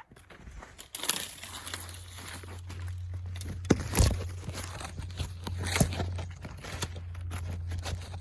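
Crunching, rustling and snapping of twigs and dry leaves underfoot and from handling, with a few sharper snaps, over a steady low rumble that starts about a second in.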